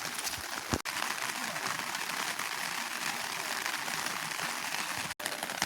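Heavy rain falling, a steady hiss, with a single dull thump just under a second in.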